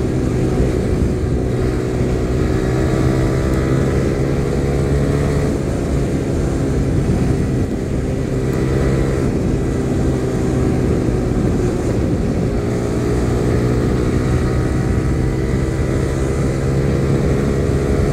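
Yamaha R15 V3's 155 cc single-cylinder engine running steadily at cruising speed of around 100 km/h, heard from the rider's position, its pitch drifting slightly down and back up a few times as the throttle changes.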